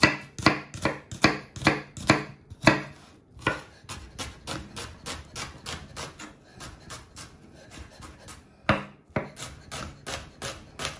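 Chef's knife chopping an onion on a bamboo cutting board: sharp knocks of the blade on the wood. A few loud strokes come about two or three a second at first, then a quicker, lighter run of cuts, with one loud knock about three-quarters of the way through.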